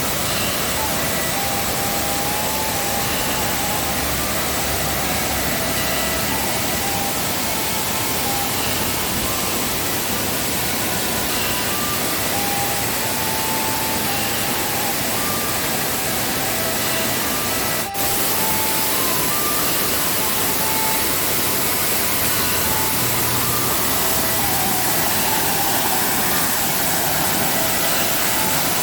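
Steady rush of a waterfall in heavy rainy-season flow, with scattered short high chirps over it and a brief break about two-thirds of the way through.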